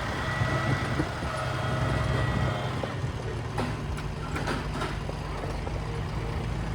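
An engine running steadily with a low hum, with a few short knocks or clatters about halfway through.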